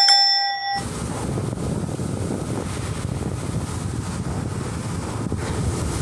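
A bell-like notification chime rings for just under a second, then gives way to steady, dense rumbling noise from flux-cored arc welding work as the wire spool feeds.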